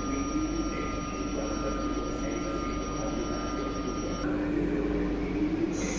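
Regional train running at a station platform: a steady hum with a constant thin whine over background noise. The whine stops about four seconds in.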